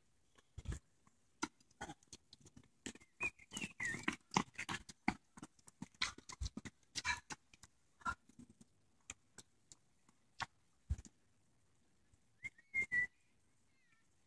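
Footfalls of runners passing close by on a paved path, heard as an irregular scatter of slaps and clicks. Short wavering whistle-like calls come twice, a few seconds in and again near the end.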